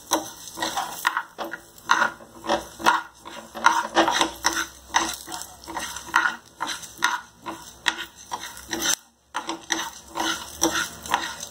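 A metal spoon stirring and scraping coriander seeds, dals and garlic cloves around a nonstick frying pan, about two strokes a second, as the spices roast in a little oil. There is a short break a little after nine seconds.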